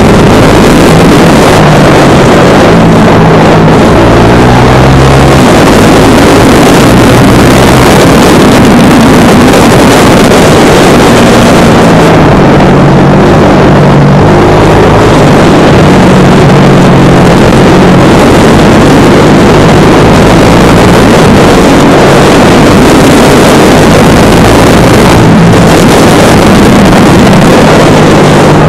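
Husqvarna Vitpilen 701's single-cylinder engine running under way, its revs stepping up and down several times, with wind rush over the microphone. The recording is very loud throughout.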